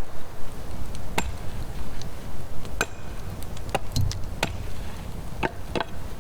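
Sharp knocks, about seven at irregular intervals roughly a second apart, with one dull low thump near the middle.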